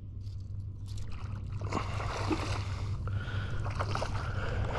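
Water sloshing and splashing, with a steady low wind rumble on the microphone.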